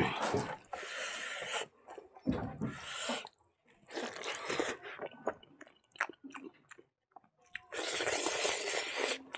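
Close-miked eating by hand: fingers mixing rice with dal and potato fry on a wooden plate, and a mouthful taken and chewed, heard as a run of short noisy bursts and clicks. A longer stretch of mixing comes near the end.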